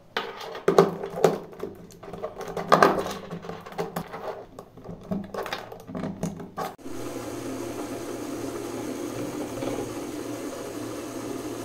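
Plastic clicks and knocks as LEGO Technic parts and a Power Functions connector are handled and plugged onto the battery box. About seven seconds in, small electric motors start up: a LEGO Power Functions motor and a red imitation motor driving LEGO Technic gears, with a steady whirring hum.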